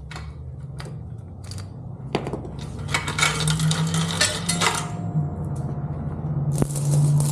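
Metal clinking and rattling of a motorcycle drive chain being handled and pulled free, with scattered clicks and two longer rattling stretches, one in the middle and one near the end, over a low steady hum.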